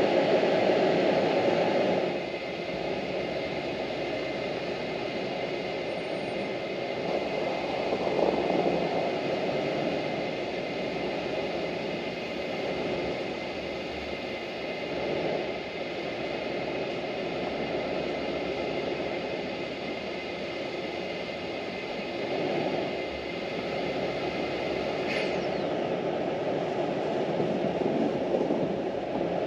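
A vehicle running, a steady rushing noise that swells and eases a little; louder for the first couple of seconds.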